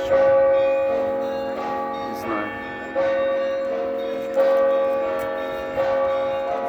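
Russian Orthodox church bells being rung: four heavy strikes, the last three about a second and a half apart, each ringing on and slowly fading under the layered tones of the others.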